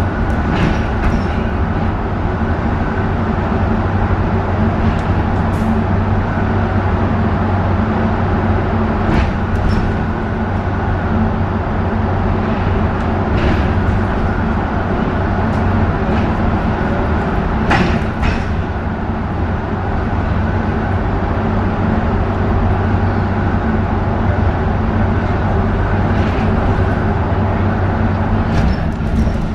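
Inside a double-decker bus on the move: a steady low engine hum over road noise, with a few short knocks from the body here and there.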